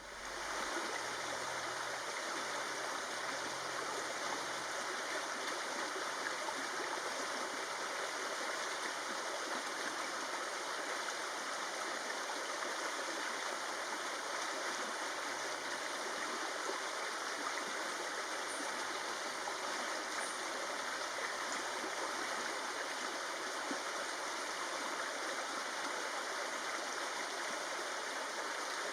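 Steady, even rushing noise with no distinct calls or events.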